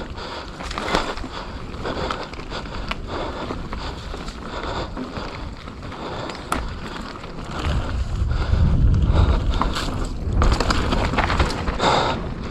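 Mountain bike riding fast down a wet dirt trail: tyres rolling and the bike clattering over bumps, with wind buffeting the microphone, heavier in the second half.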